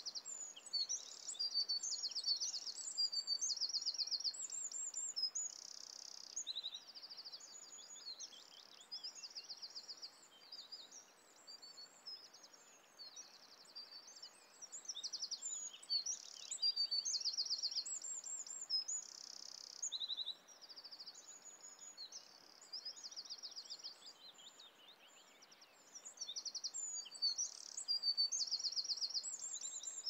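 Birds chirping and singing, many high, quick trills and short whistled phrases overlapping, in busier and quieter stretches over a faint steady hiss.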